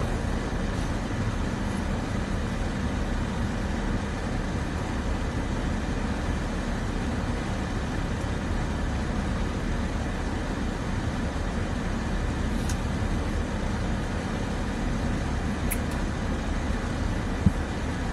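Steady low rumble and hiss inside a car's cabin from the idling engine and ventilation. There is a single sharp click near the end.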